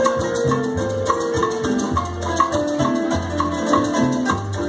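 Cuban timba (salsa) music played loud over a dance sound system: a repeating piano riff over a pulsing bass line, with shakers and other percussion keeping a steady beat.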